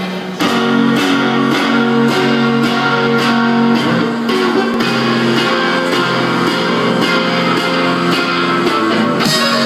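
Live rock band starting a song about half a second in: electric guitar chords ringing over drums, played through a festival PA.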